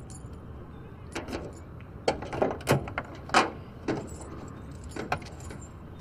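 Car keys jangling and clicking in a trunk lock, then the trunk lid unlatching and lifting open: a run of sharp clicks and metallic clunks, the loudest about two and three and a half seconds in.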